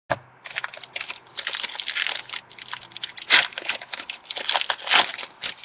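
A 2011 Panini Certified football card pack's foil wrapper being torn open and crinkled by hand. It is a run of sharp crackles and rustles, loudest a little past three seconds in and again around five seconds.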